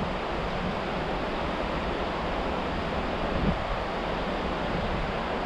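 Steady rushing of a flowing stream, with wind buffeting the microphone as a low rumble.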